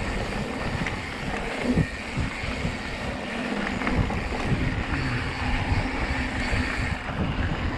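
Wind buffeting the microphone over a steady low rumble with scattered knocks and rattles, typical of riding a mountain bike over a dirt trail.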